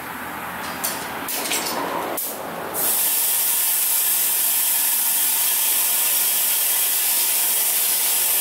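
Compressed air hissing steadily from a shop air hose, starting about three seconds in. Before it come a few sharp clicks and knocks as the hose is handled.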